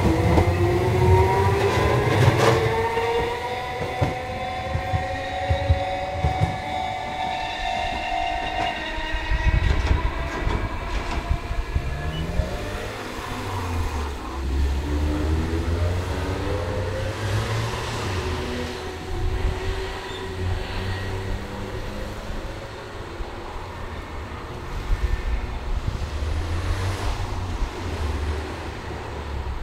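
Chikuho Electric Railway tram pulling away from the platform: its motor whine climbs in pitch as it accelerates over the first several seconds. Its wheels then go on clattering and rumbling over the rail joints as it runs off into the distance.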